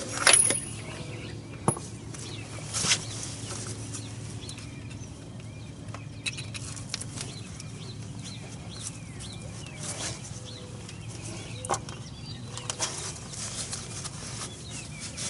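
Birds chirping, a run of short repeated calls, over a low steady background, with a few sharp clicks and knocks.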